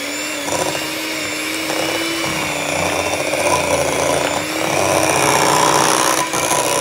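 Electric hand mixer running steadily, its twin beaters churning cream cheese and heavy cream in a glass bowl, with a steady motor hum under the whisking noise that grows a little louder about five seconds in.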